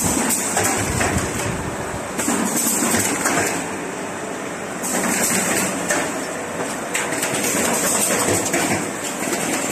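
Automatic corrugated-carton partition assembly machine running as it slots cardboard dividers together: steady machine noise with frequent short knocks and clacks, and a high hiss that comes and goes.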